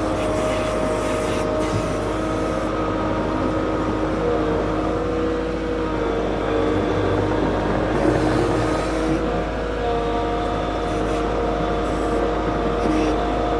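KATO CL35 compact track loader's diesel engine running steadily while the machine drives back and forth over loose rock. Its pitch shifts a little a few times.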